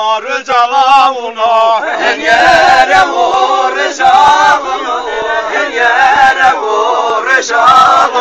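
Men singing a Zazaki halay song: a single lead voice at first, then more voices joining in chorus about two seconds in.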